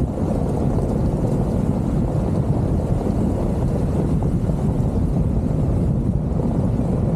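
Steady low rumble of a car driving over a gravel road, heard from a camera mounted on the hood: tyre and road noise mixed with wind buffeting the microphone.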